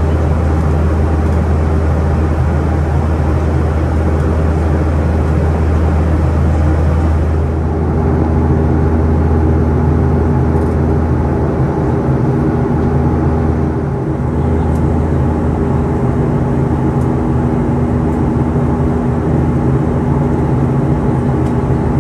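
Cabin noise of a Boeing 737-400 in flight: the steady drone of its CFM56-3 turbofan engines and the airflow. About seven seconds in, the hiss eases and a set of steady hum tones comes in.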